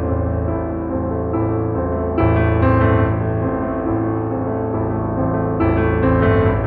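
Background music: piano or electric piano chords over a sustained bass, changing every second or two.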